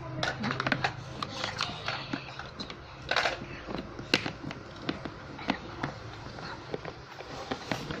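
Plastic Play-Doh tools and containers being handled, giving irregular light clicks and clatters, with a brief rustle about three seconds in.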